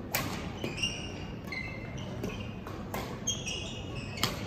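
Badminton rally: a series of sharp racket strikes on the shuttlecock, the loudest just after the start and near the end, with short high squeaks of court shoes between them.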